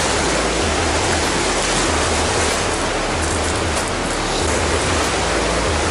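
River water rushing steadily over shallow rapids: a loud, even rush of noise with no breaks.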